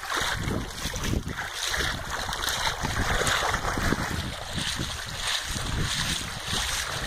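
Legs wading through deep floodwater: steady sloshing and churning of water, with wind buffeting the phone's microphone.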